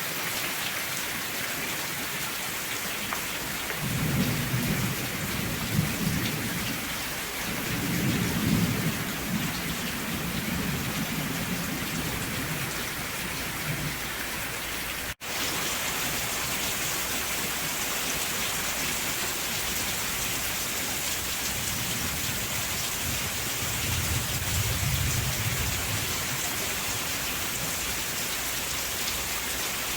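Steady heavy rain hissing, with low rolling thunder rumbling three times: about four seconds in, from about eight to thirteen seconds, and again near the end. A split-second dropout cuts the sound about halfway through.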